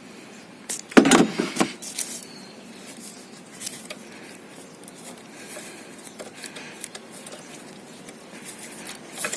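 Hand tools clanking and clicking on metal in the engine bay as a socket wrench works the alternator belt tensioner bolt. A loud burst of clanks comes about a second in, then scattered faint clicks, and a few more knocks near the end.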